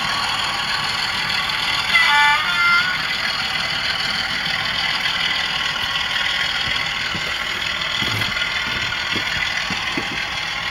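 Model diesel locomotive's engine sound idling steadily through a small speaker, with a short two-note horn about two seconds in and a few soft knocks near the end.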